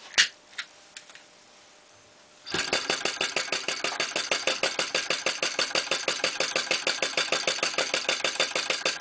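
A long lighter clicks as the burner is lit. About two and a half seconds in, the Fire Eater (flame-licker) model engine starts and runs with a fast, even beat.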